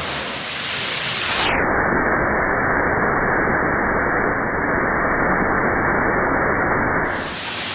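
Steady rush of falling water. About a second in it turns dull and muffled, with all the high end gone, as the microphone goes under the water. The high end comes back near the end as it surfaces.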